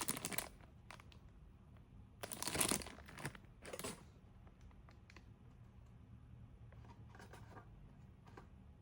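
Packaging of a small toy blind box being torn open by hand: two short ripping sounds a couple of seconds in, with a few light clicks and rustles around them.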